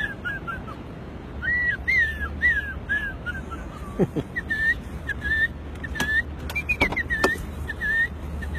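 A man mimicking birdsong with his mouth: a series of short, arched whistled chirps. A quick run of notes falls away early on, then shorter chirps repeat, with a few sharp clicks between them.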